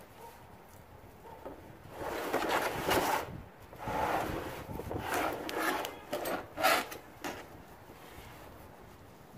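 A metal treestand platform and frame, wrapped in bubble wrap, being slid and pulled out of its cardboard box: cardboard scraping and rubbing with plastic rustle. It comes in several bursts from about two seconds in until about seven seconds, with a few sharp knocks.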